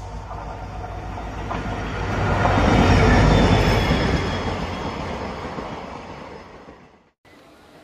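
A passenger train's coaches rushing past at speed, the rumble of the wheels on the rails swelling to a peak about three seconds in and then fading. The sound cuts off abruptly near the end.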